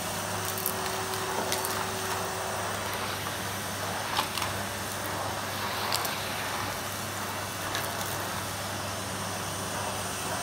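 Numatic Henry cylinder vacuum cleaner running steadily with its floor nozzle on a carpet, a motor hum under rushing air. A few sharp clicks as bits of debris are sucked up the tube.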